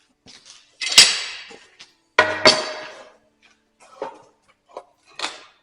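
Lengths of 2x4 lumber knocking and clattering as they are handled and set down: two loud knocks about one and two seconds in, each with a short ringing tail, then a few lighter taps.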